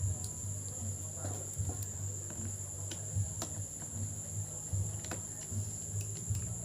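Faint scattered clicks and taps of a small screwdriver and hands working on a laptop's plastic bottom case, over a steady high-pitched whine and a low hum.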